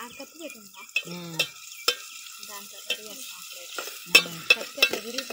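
Steel ladle stirring onions frying in oil in a steel pot, with a steady sizzle and sharp clinks of the ladle against the pot, more of them in the second half.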